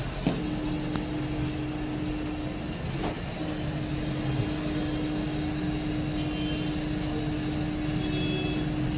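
Hot air rework station blowing steadily: a continuous hum with one held note that drops out briefly about three seconds in.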